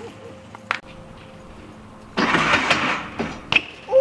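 A BMX bike on pavement: a couple of sharp knocks and, about two seconds in, a loud rush of noise lasting under a second, over a faint steady hum.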